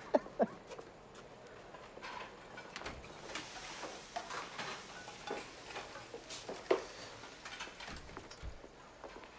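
A few short bursts of a man's laughter at the start, then faint handling noises: cardboard and a pizza box rustling and ticking, with one dull thud about two-thirds of the way through.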